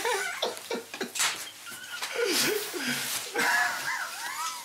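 People laughing without words: breathy, wheezing laughs, with a high-pitched squealing laugh in the last second or so.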